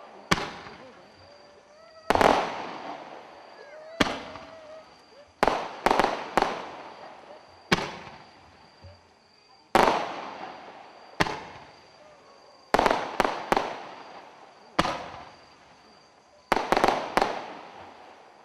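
A 1.75-inch roman candle firing shots that break into silver crossettes: about twenty sharp bangs, each trailing off. Some come singly a second or two apart, others in quick runs of two to four.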